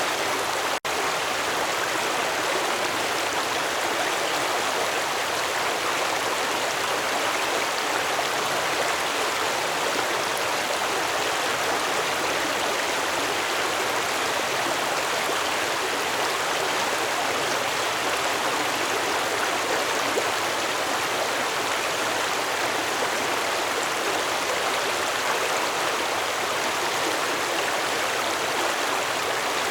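Stream water flowing and gurgling steadily over rocks, with a split-second gap in the sound about a second in.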